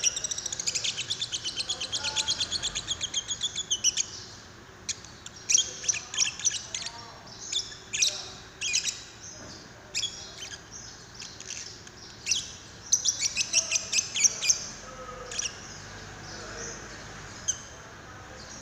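Young lovebird chattering: a fast run of high chirps for about four seconds, then short bursts of chirps with pauses between them.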